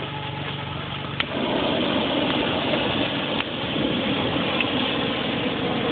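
Hot air balloon's propane burner firing overhead: after a click about a second in, a loud, steady rushing noise that holds to the end, over a steady engine hum.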